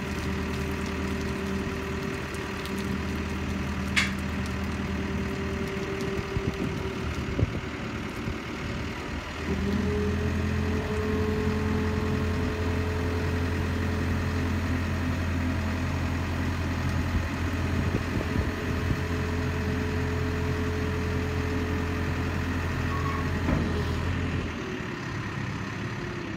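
Hydrema 912E dumper's diesel engine running at idle, then picking up a step in speed and level about a third of the way in. It holds there and drops back near the end, while the tipped skip is lowered.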